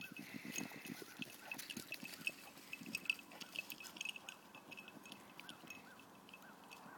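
Rustling and crackling steps through dry grass and leaves, with a dog's quick breathing in the first second or so.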